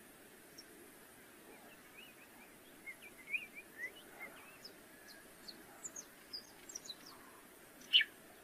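Canário-rasteiro (stripe-tailed yellow finch) singing faintly: short, quick high chirps and twitters begin about three seconds in, with a louder sharp note near the end.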